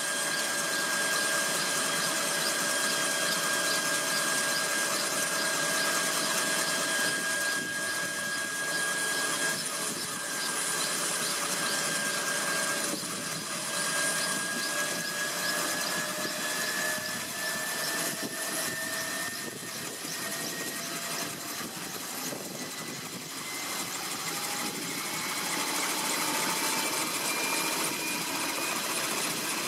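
Small intermeshing twin-rotor helicopter running on the pad with its rotors turning: a steady engine whine with a rushing noise. From about halfway through, the whine rises slowly in pitch as the engine and rotors speed up.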